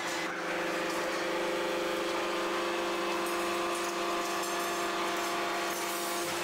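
Steady hum of running factory machinery, a motor or pump holding a constant pitch over a background of mechanical noise.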